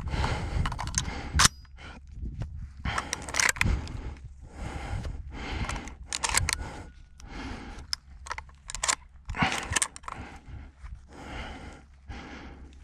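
Footsteps crunching through dry scrub and brush, with rustling and irregular sharp clicks and knocks. The sharpest click comes about a second and a half in.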